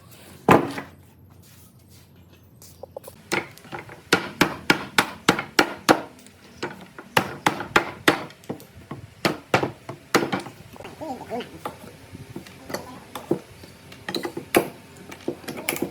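Hammer blows on wood: one loud knock just after the start, then a run of sharp strikes at about three a second, continuing more unevenly to the end.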